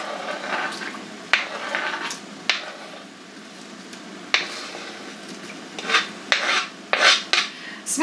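Kitchen knife scraping sliced raw onion off a cutting board into a bowl of marinade, with several sharp taps and clinks of the knife on board and bowl; a spoon clinks in the bowl near the end.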